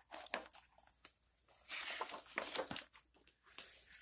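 Pages of a hardcover picture book being turned: paper rustling and crinkling in a few short scrapes, with a longer rustle in the middle.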